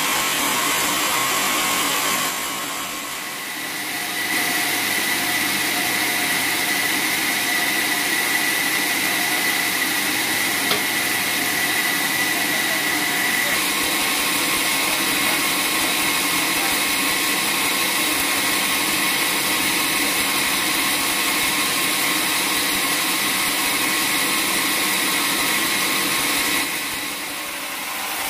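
Vertical band sawmill running, its blade cutting teak logs: a loud, steady machine noise with a high whine over it for a while, dipping briefly twice.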